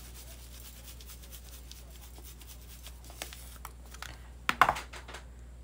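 Light, fast clicking and scratching as pink salt is dispensed from a handheld container over a plate of food, then a few sharp, louder knocks about four and a half seconds in.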